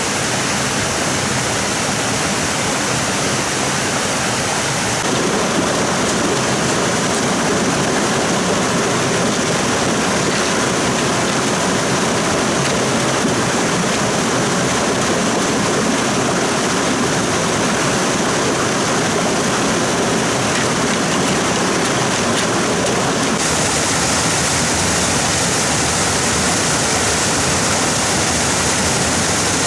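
Steady rush of a fast-flowing stream, with no pauses. The sound grows fuller about five seconds in and turns brighter and hissier about twenty-three seconds in.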